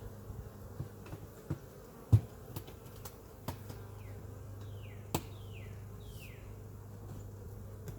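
Honeybees buzzing steadily around an open hive, with a few sharp knocks, the loudest about two seconds in.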